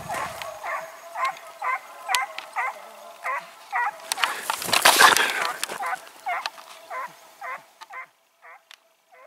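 Hunting hounds baying on the trail of a hare: a steady run of yelping, goose-like calls, about two a second. A loud burst of rushing noise comes around four to five seconds in. The baying grows faint after about eight seconds.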